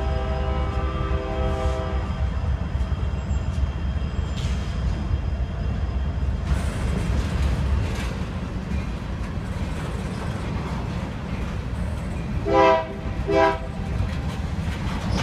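Diesel freight locomotive's air horn sounding a steady chord that cuts off about two seconds in, then the continuous low rumble of freight cars rolling past on the rails, with two short horn blasts near the end.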